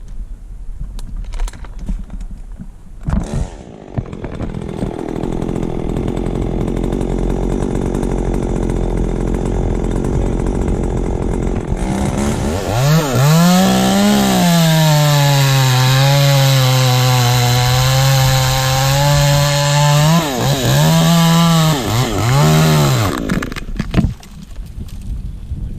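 Two-stroke chainsaw running at low speed, then opened to full throttle about halfway through and cutting, its pitch sagging and wavering under the load of the wood for several seconds. It ends with a few short revs before dropping back.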